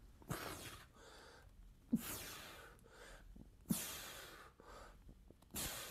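A man breathing out hard four times, about one breath every two seconds, in time with his push-ups.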